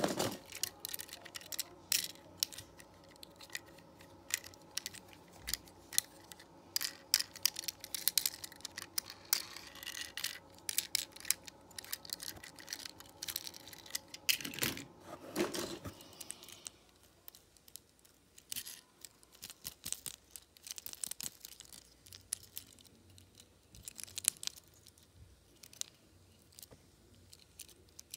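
Small die-cast toy cars clinking and clattering against one another and a plastic storage tub as a hand rummages through them, in irregular runs of sharp little clicks that come thick and fast at first and grow sparser near the end.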